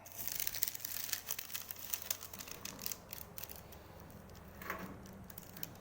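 Baking paper crinkling and rustling as it is pressed and smoothed by hand over a metal panel to work the creases out. It is busiest in the first few seconds, then quieter.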